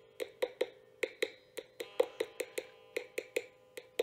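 Rapid tapping with a small metal tool on a Parker Fly's piezo bridge saddle, about five taps a second, each tap ringing briefly. This is a tap test: the taps come through, a sign that the unglued saddle cap is conducting to the piezo element beneath it.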